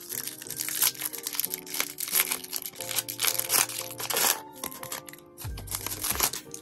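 A Pokémon card pack's plastic wrapper crinkling as it is torn open, with dense crackles over steady background music.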